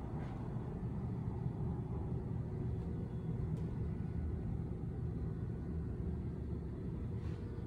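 Steady low rumble of background noise, with a faint click a few seconds in.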